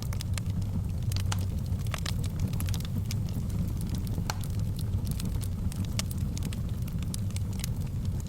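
Fireplace fire crackling: frequent small, sharp pops at irregular moments over a steady low rush of burning.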